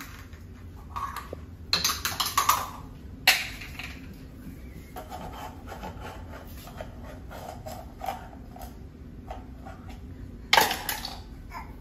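Plastic measuring cups clacking and knocking against a tile floor as a baby handles them while crawling. The knocks come in scattered clusters, with a quick run around two seconds in and a loud clack near the end.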